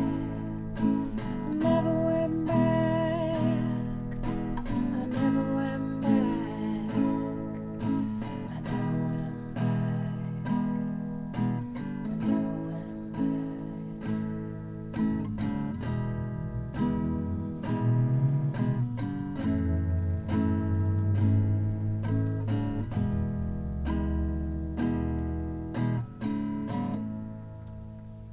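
Acoustic guitar strummed in a steady rhythm, playing the chords of an instrumental passage, dying away near the end.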